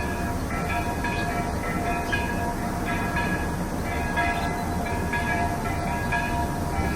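An unexplained 'strange noise': a steady low rumble overlaid with several high whining tones that cut in and out every half second to a second.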